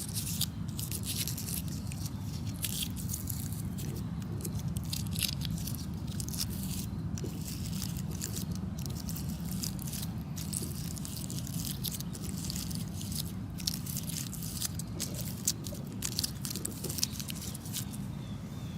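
Dry, papery strawflower petals crackling and rustling as fingers stroke them, in a dense run of small irregular crackles. A steady low background hum sits underneath.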